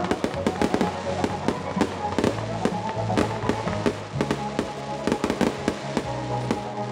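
Fireworks bursting and crackling, with many sharp bangs and crackles in quick succession.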